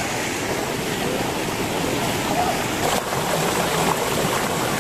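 Mountain stream rushing over rocks and small cascades, a steady loud rush of water. Faint voices are heard behind it.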